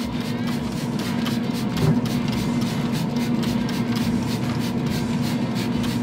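Hand trigger spray bottle squirted again and again in quick succession, about four or five spritzes a second, over a steady low hum.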